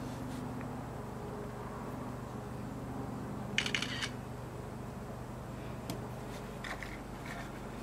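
A quick rattle of sharp clicks about three and a half seconds in, then a few fainter clicks, as an iPhone 5 is handled and tapped to open its camera app, over a steady low room hum.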